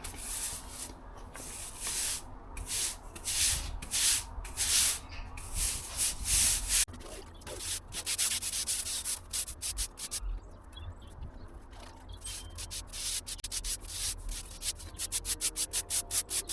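A stiff broom brushing liquid sealer onto imprinted concrete in repeated scrubbing strokes, irregular at first, then quickening to a fast, even back-and-forth near the end.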